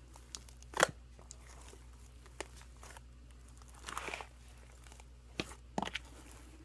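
Hands kneading and stretching a large lump of mixed slime, giving scattered sticky pops and crackles; the loudest comes about a second in, with a cluster around four seconds.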